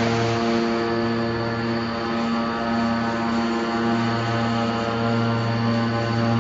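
Hydraulic scrap-metal baler running with a steady, droning hum, its motor-driven hydraulic pump holding a constant pitch.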